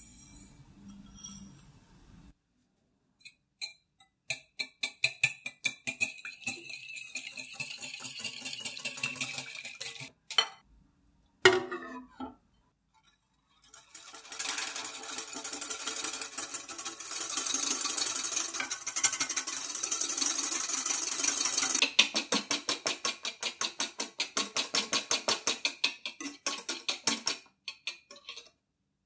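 A wire whisk beating egg yolks and sugar in a glass bowl, clicking against the glass in fast, even strokes, after a brief patter of sugar at the start. A dense stretch of rapid whisking in the middle gives way to slower, separate strokes near the end as the zabaglione turns pale and thick.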